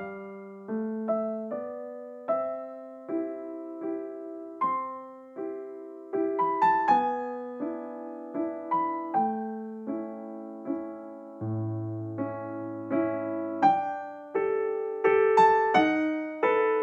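Background music: a gentle piano melody of struck, fading notes, about two a second, over a few lower bass notes.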